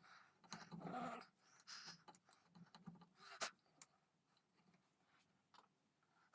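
Faint scraping strokes of a chisel paring wood out of a gunstock's trigger inlet, with a sharp click about three and a half seconds in and a few small ticks after.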